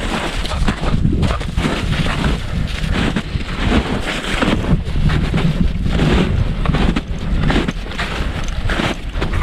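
Strong wind buffeting a GoPro Hero 8's microphone, loud and gusting, with footsteps crunching in snow underneath.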